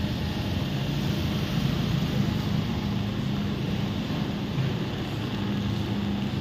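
A steady low engine hum under a broad, even wash of noise.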